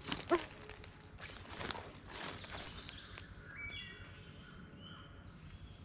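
Footsteps crunching on the forest floor for the first couple of seconds. From about three seconds in come thin high tones that jump from one pitch to another in steps, which the hiker takes for strange interference picked up by his microphone.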